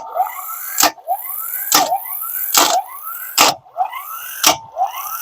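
12V electric impact wrench cycling on its own: its motor whines rising in pitch, then cuts off with a sharp click, over and over a little under once a second. The user cannot explain why it behaves this way.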